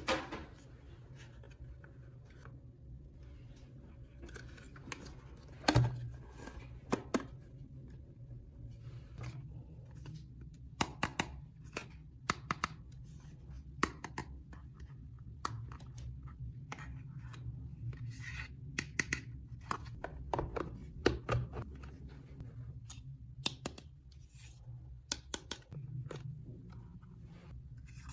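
Hands handling small plastic toy pieces: irregular clicks, taps and scratches, with a sharper click about six seconds in, over a low steady hum.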